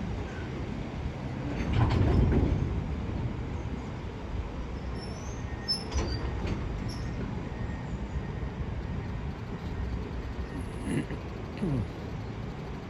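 Loaded container wagons of a freight train rolling past, a steady rumble of wheels on rail that swells louder about two seconds in, with a sharp knock about six seconds in and two short falling whines near the end.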